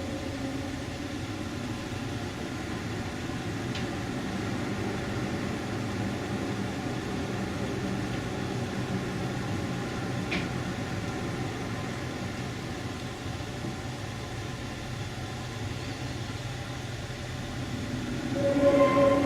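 Low, steady droning rumble with faint held tones, one of the unexplained 'strange sounds' people reported hearing in the sky. A louder, steady pitched drone swells in near the end.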